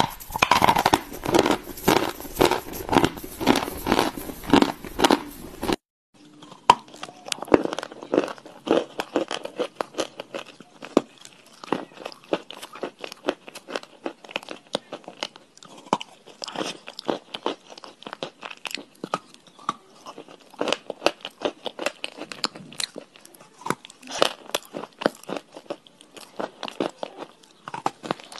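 Close-up crunching as white chalk is bitten and chewed: loud, crisp crunches in an even rhythm. About six seconds in the sound cuts to a second eater chewing a hard chalky piece, with quicker, fainter crunches.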